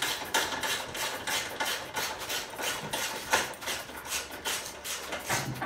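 Hand ratchet wrench clicking in a quick, even run as it turns a Torx T40 bolt holding a motorcycle fuel tank.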